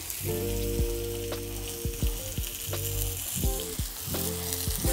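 Seasoned chicken breast sizzling as it sears in hot olive oil in a cast iron skillet, a steady hiss with scattered small pops.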